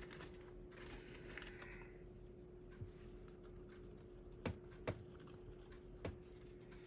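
Quiet handling of small slot-car parts: four light clicks spread over several seconds, over a faint steady hum.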